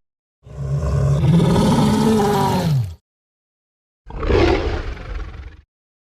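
Made-up juvenile Tyrannosaurus rex roar sound effect: a long roar of about two and a half seconds whose pitch rises and then falls. It is followed, after a second of silence, by a shorter call that fades out.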